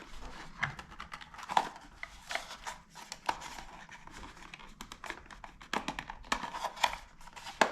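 Cardboard boxes and packaging being handled: irregular rustling, scraping and light knocks.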